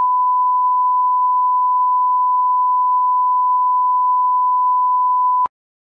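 Steady 1 kHz line-up tone, the single-pitch reference tone that runs with colour bars at the head of a video tape. It holds one level and cuts off suddenly about five and a half seconds in.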